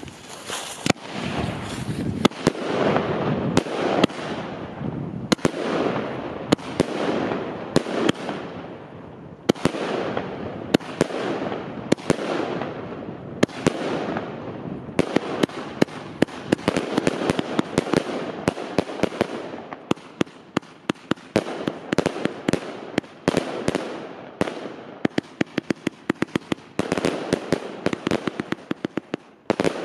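Magnum Vuurwerk Santa Domingo firework battery firing shot after shot: sharp launch reports and bursting shells with crackling between them. The shots come faster in the last ten seconds or so.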